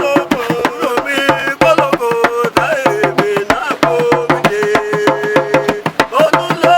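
Background music with fast, steady drumbeats under a melody, which cuts off abruptly at the end.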